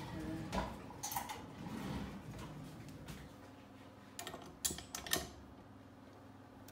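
Metal clicks and knocks as a KitchenAid Artisan stand mixer and its steel bowl are handled and the wire whisk is fitted onto the mixer head. There are a few knocks about a second in and a quick cluster of clicks just after four seconds, with the motor not running.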